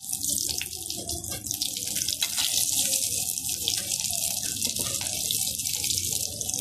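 Aloo tikkis coated in gram-flour batter deep-frying in hot oil: a steady, even sizzle with faint scattered crackles.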